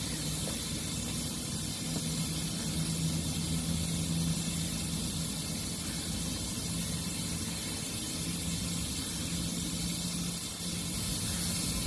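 TIG welding arc running: a steady hiss with a low electrical hum that drops in and out.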